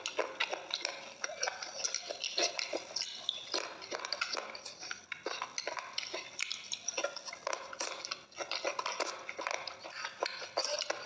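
A spoon stirring and scooping dry crushed clay crumbles in a glass bowl: a dense run of gritty scrapes, clicks and clinks, with crunchy bites of clay mixed in.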